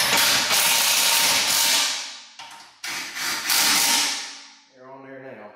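Cordless impact driver tightening the crash-can bolts on a front bumper beam, run in two bursts: about two seconds, then, after a short break, about a second and a half.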